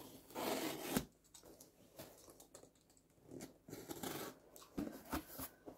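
A parcel being unpacked by hand: irregular bursts of rustling, scraping and tearing packaging, with a few short clicks near the end.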